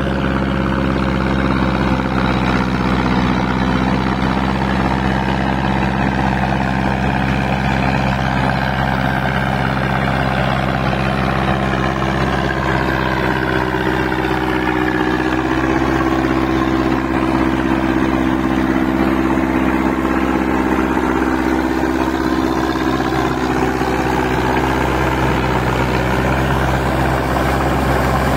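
Massey Ferguson 185 tractor on tracks, its four-cylinder diesel engine running steadily under load while rotavating a flooded paddy field. The engine note shifts slightly about halfway through.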